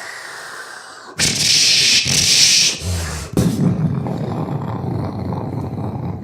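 A comedian's mouth sound effects of a big shotgun in an action film, exaggerated as if magnified: a faint hiss, then about a second in a sudden loud hissing blast lasting a second and a half, followed by a long, lower rumbling boom.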